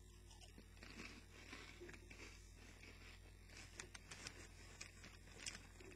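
Faint, irregular crunching of Funyuns onion-ring corn snacks being chewed, with small crackles scattered through.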